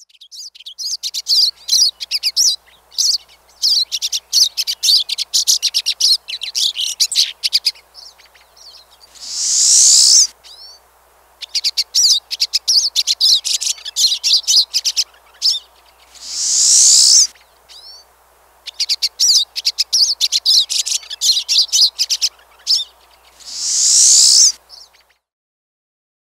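Pine siskin singing: long runs of rapid, jumbled twittering, broken three times, about seven seconds apart, by a loud buzzy note that sweeps upward and lasts about a second.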